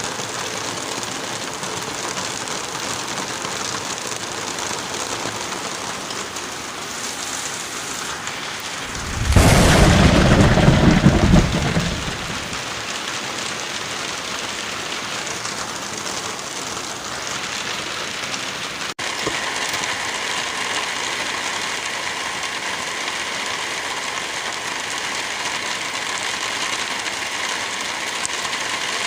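Steady rain, with a loud rumble of thunder about nine seconds in that lasts some three seconds. The rain cuts abruptly to a slightly brighter texture about two-thirds of the way through.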